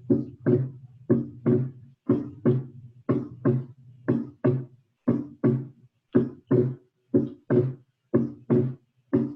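Recorded heart sounds: a steady lub-dub of the first and second heart sounds, about one beat a second. In the first beats the second sound is split, heard as "dum-trá" with inspiration, and later it beats single, "dum-tá", on expiration: physiological splitting of the second heart sound.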